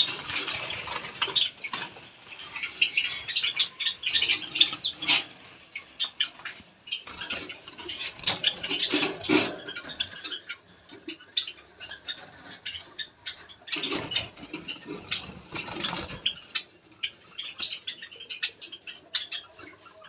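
Small aviary birds chirping and squeaking rapidly in quick, high, overlapping calls. There are bursts of rustling about nine seconds in and again around fifteen seconds.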